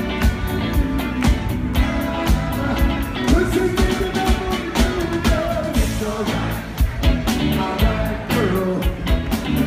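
A rock band with a horn section playing live, a lead singer over a steady drum beat, bass and saxophones, heard from the audience in the hall.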